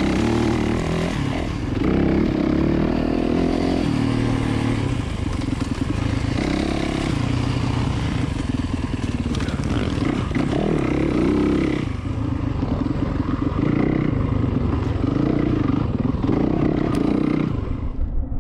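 Yamaha WR450F dirt bike's single-cylinder four-stroke engine under way, its pitch rising and falling again and again as the throttle is opened and closed, with rattling from the bike throughout.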